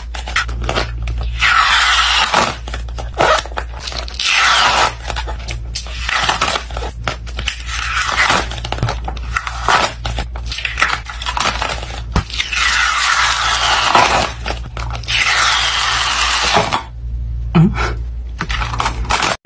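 A thin coloured film crackling as it is peeled off the inside of a square bowl with tweezers, in a series of long pulls. A steady low hum runs underneath.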